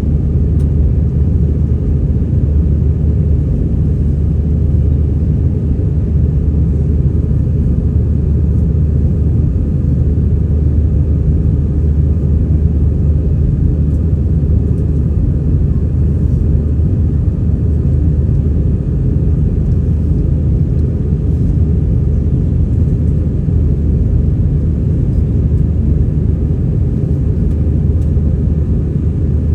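Airbus A320 cabin noise: a steady low rumble of engines and airflow, loud and unchanging.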